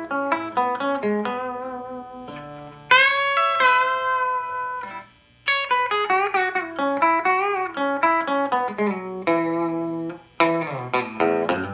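Telecaster electric guitar with Gotoh titanium compensated saddles, played clean through an amp. Picked single notes and arpeggiated chords, with a few notes bent upward and a short pause about five seconds in.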